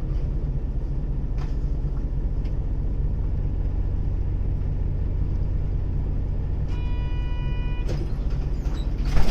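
Hino Blue Ribbon long-body city bus's diesel engine running with a steady low rumble, heard from inside the bus; its engine note is slightly different from a normal Blue Ribbon's. About seven seconds in, an electronic chime sounds for about a second, and near the end comes a short, loud burst of noise, the loudest moment.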